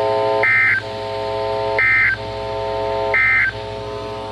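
Emergency Alert System end-of-message data bursts from NOAA Weather Radio: three short, shrill digital warbles about a second and a third apart, marking the end of the alert. A steady buzzing chord of lower tones fills the gaps between the bursts and cuts out under each one.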